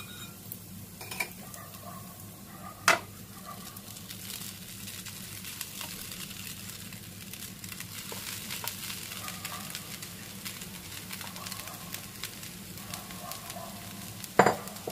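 Oil sizzling steadily in a frying pan of onions, peanuts and spices as washed poha (flattened rice) is added by hand, with a sharp knock about three seconds in and another near the end.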